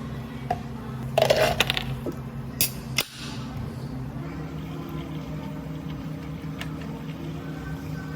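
Drink-making behind a cafe counter over a steady machine hum: a short rush of noise about a second in, then two sharp clicks or knocks.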